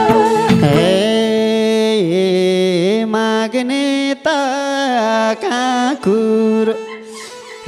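A man singing a dohori folk verse into a microphone in long, drawn-out held notes that bend in pitch, almost unaccompanied; the band's instruments drop away about a second in.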